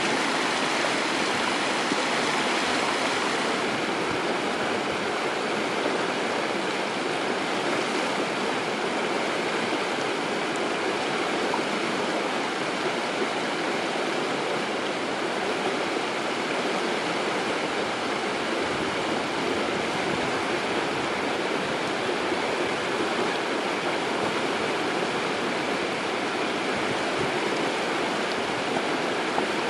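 Shallow stream running over small cascades and riffles: a steady rush of water.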